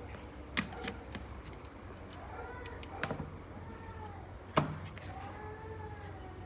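Handling noises from a circuit board and an audio cable being put down and picked up on a cutting mat: a few light knocks and clicks, the loudest about four and a half seconds in, over a low steady hum.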